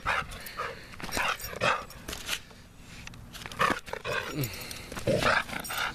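A dog barking and vocalising in short bursts during rough play, several separate bursts spread through the few seconds.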